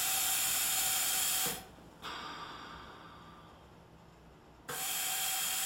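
Bird Mark IPPB ventilator hissing steadily with a faint whistle as it drives a positive-pressure breath and its albuterol nebulizer through the mouthpiece. The flow cuts off with a click about a second and a half in, a softer hiss fades away as the breath is let out, and near the end the machine clicks on and hisses again for the next breath.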